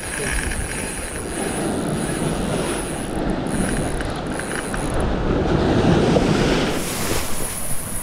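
Penn Spinfisher 7500 fixed-spool reel being wound steadily, its gears running as a hooked fish is reeled in on a bent rod.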